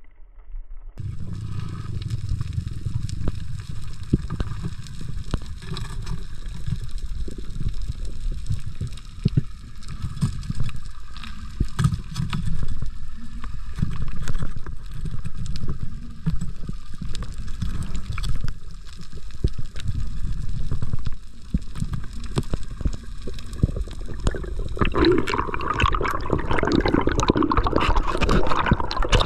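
Muffled underwater water noise picked up through a camera housing: a deep rumble with many small clicks and knocks. About 25 seconds in it grows louder and brighter, with more rushing water.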